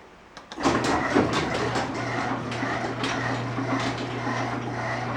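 Garage door opener starting about half a second in and running steadily to close the door: a low motor hum with a continuous clatter of small clicks and rattles from the door moving along its track.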